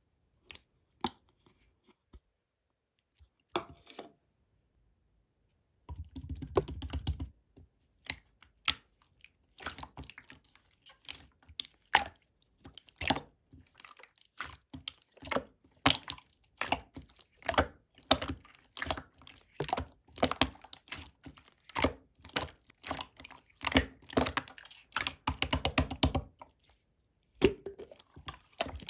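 Hands pressing and squishing slime, making quick wet clicks and pops as air pockets burst. A few scattered pops at first, then a steady run of them from about six seconds in.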